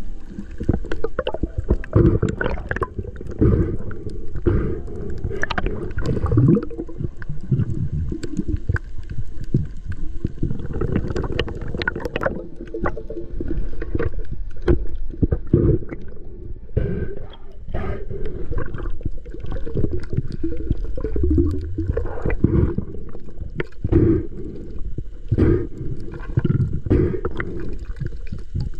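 Muffled underwater sound picked up by a submerged camera: water rushing and gurgling against the housing as the diver moves, with many scattered clicks and knocks.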